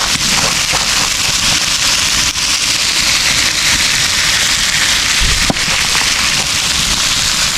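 Meat, onion and carrots frying in oil in a big pan over a wood fire: a steady, loud sizzle with scattered sharp pops.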